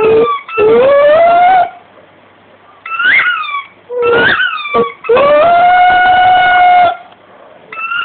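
A dog chewing a squeaky rubber rugby-ball toy, with long drawn-out squealing tones and the dog's own howling cries mixed in. There is a squeal of about a second early on and a steady one of about two seconds from about five seconds in. Short rising-and-falling howls come between them.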